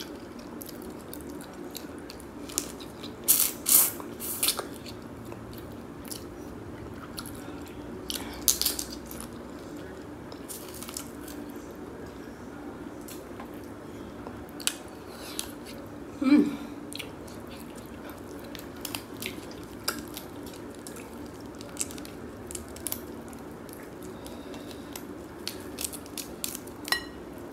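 Close-up eating sounds of boiled crab and shrimp: wet chewing and sucking, with sharp cracks and snaps as shells are pulled apart by hand, loudest a few seconds in and again after about eight seconds. A short hum of the voice about halfway through, over a steady low hum in the room.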